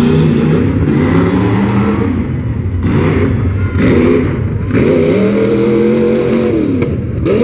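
Modified tuff truck's engine revving, its pitch climbing and dropping several times as the throttle is opened and let off, with a longer high rev past halfway.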